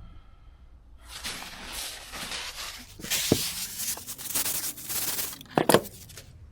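Wiping up spilled fuel around a motorcycle carburettor: rustling and rubbing that grows louder and rougher after about three seconds, with a couple of sharp knocks of parts on the bench.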